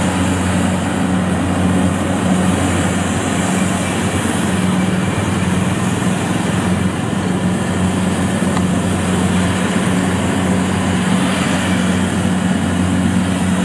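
Kubota DC70 Plus diesel combine harvester running steadily while it cuts and threshes rice: a constant engine drone under the noise of the cutting and threshing works.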